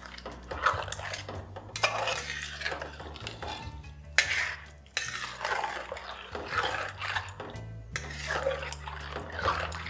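A long metal spatula stirring chicken pieces through a thick yogurt-and-herb masala in a hammered copper pot, with irregular scrapes and clinks against the pot, mixing freshly added ground spices into the chicken.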